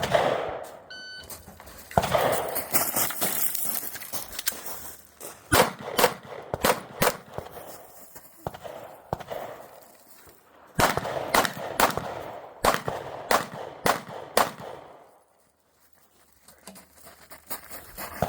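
A shot-timer beep about a second in, then strings of rapid gunshots in quick clusters with short pauses between them, dropping to near silence for a moment near the end.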